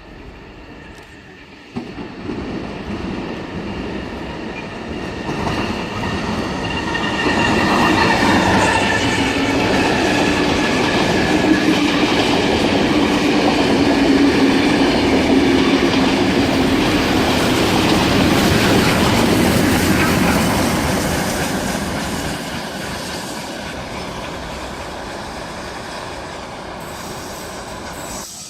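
A train passing on the rails: it comes in about two seconds in, grows louder to a peak around the middle, then slowly fades away.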